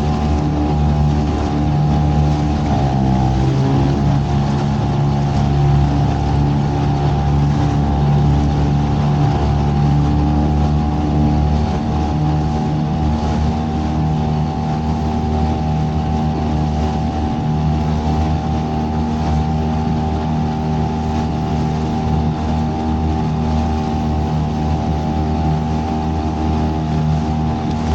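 A small boat's outboard motor running steadily under way, its pitch briefly dipping and recovering about three seconds in.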